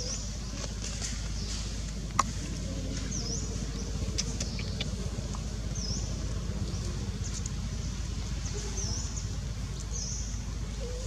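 Outdoor ambience with a steady low hum. Over it, a short high chirp repeats every two to three seconds, and there is one sharp click about two seconds in.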